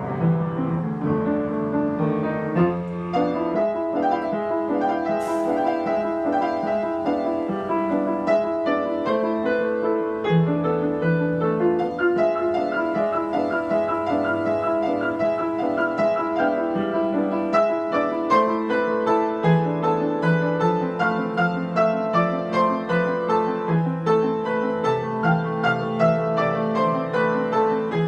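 Solo piano played continuously in a piano practice: quick, dense notes with a steady pulse of accented chords.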